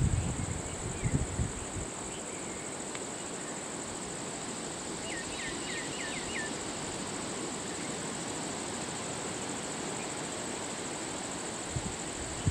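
Steady high-pitched drone of insects in the roadside scrub, with a bird giving a quick run of about five downward chirps about five seconds in. Low rumbles, like wind on the microphone, in the first second or two.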